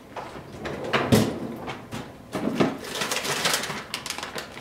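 Refrigerator freezer drawer pulled open on its slides with a knock about a second in, then frozen packages knocked about and a plastic bag of frozen food rustled as it is pulled out.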